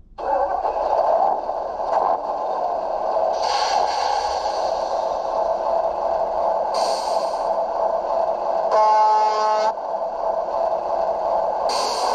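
Simulated truck diesel engine sound from a Das Mikro TBS Mini sound module, played through the RC scale truck's onboard speaker. It starts abruptly and runs steadily, with short hisses about three and a half, seven and twelve seconds in, and a horn blast of about a second, about nine seconds in.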